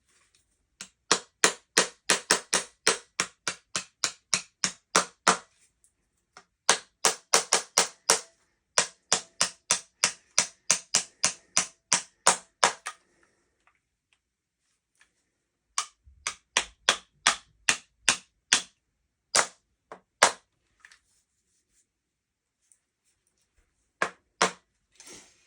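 A hammer tapping the takedown pins back into a bullpup shotgun's receiver: sharp taps in quick runs of about four or five a second, several runs with short pauses between them.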